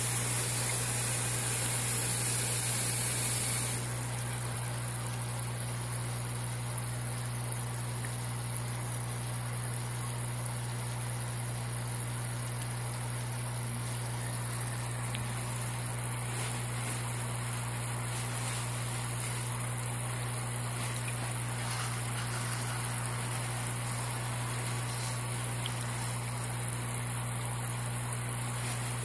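Steady low hum with a hiss, typical of an aquarium air pump running. The hiss eases about four seconds in.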